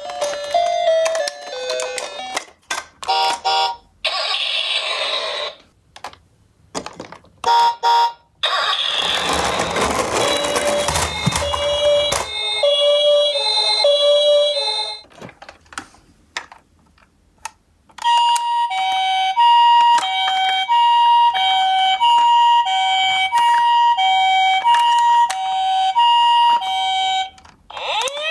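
Battery-powered toy ambulances playing their electronic sound effects: a short tinkly jingle, scattered beeps and a few seconds of rushing noise. In the last third comes a steady two-tone ambulance siren, a higher and a lower note alternating about every half second, Japanese-ambulance style.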